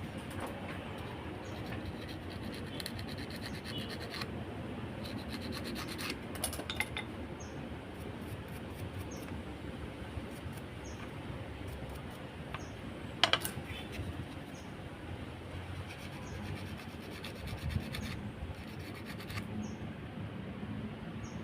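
Scraping and rubbing of hands working on small parts, with scattered light clicks and one sharp click about 13 seconds in.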